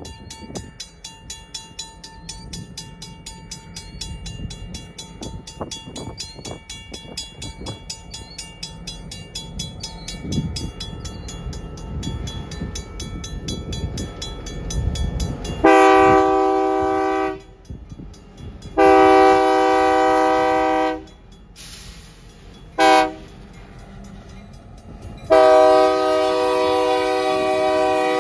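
A pair of EMD GP38-2 diesel locomotives approaching: a low engine rumble with scattered clicks, then the locomotive's air horn sounding two long blasts, a short one and a long one, the grade-crossing signal.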